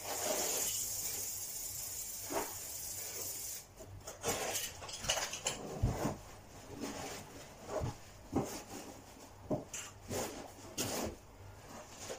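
An aerosol spray can hisses steadily for about three and a half seconds, then cuts off. Scattered knocks and clinks of hand tools against the floor follow.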